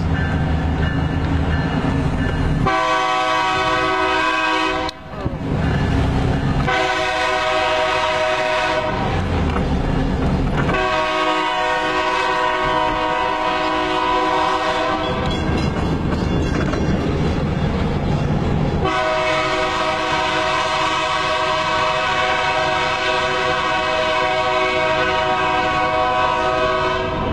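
Santa Fe locomotive 2742's multi-chime air horn sounding four blasts: two short, a longer third and a long final one that runs on to the end. A noisy rumble from the road and the train fills the gaps between the blasts.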